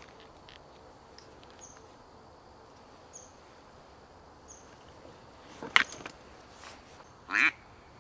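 Faint high chirps every second and a half or so over quiet outdoor background, a sharp click about six seconds in, then a loud quack from a duck call near the end.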